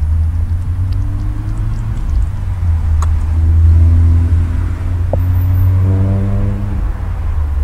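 Steady low rumble of road traffic going by close at hand. A passing vehicle's engine note stands out for a few seconds in the second half.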